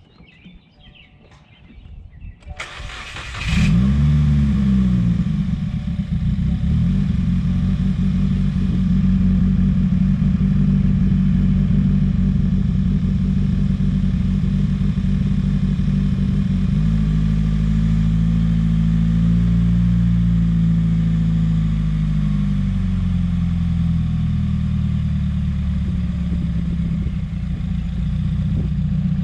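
2017 Subaru WRX engine cranked by the starter about three seconds in, catching with a brief rev flare, then idling with its pitch shifting up and down in the middle. It idles rough and keeps stalling, which the owner puts down to a boost or vacuum leak.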